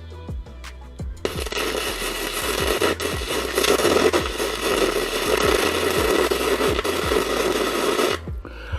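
Arc welding: a dense, crackling weld arc that starts about a second in and stops near the end, over background music with a steady low beat.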